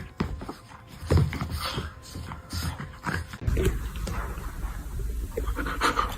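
A dog making short, irregular vocal sounds. A steady low hum comes in about halfway through.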